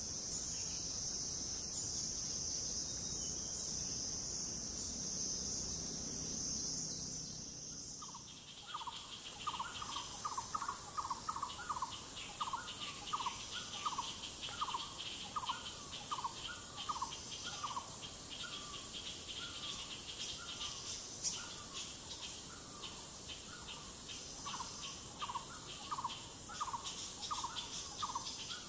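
Tropical forest insects droning steadily at a high pitch. About eight seconds in the drone changes at a cut, and a bird starts a long series of short, repeated down-slurred call notes, roughly two a second, thinning out for a few seconds in the middle.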